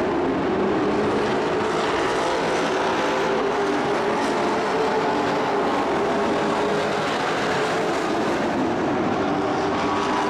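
Engines of a field of dirt-track racing trucks running hard at speed: a steady, loud wall of engine noise in which several pitches overlap and waver slightly as the trucks circle the track.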